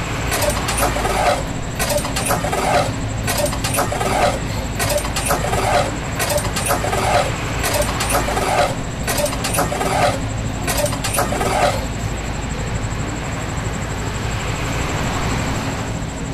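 Hand-operated lever water pump being worked, its handle squeaking and clanking with each stroke at about two strokes a second. The strokes stop about twelve seconds in, leaving a steady hiss.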